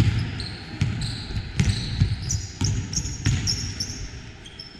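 Basketball bouncing on a hardwood gym floor, several bounces under a second apart, with short high-pitched sneaker squeaks in the middle.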